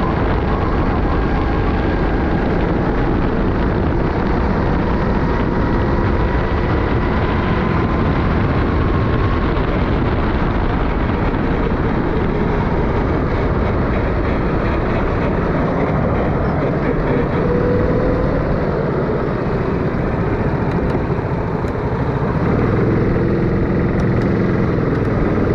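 Racing kart engine running hard on track, heard onboard with heavy wind rush on the microphone; the engine note rises and falls as the kart accelerates and lifts for corners.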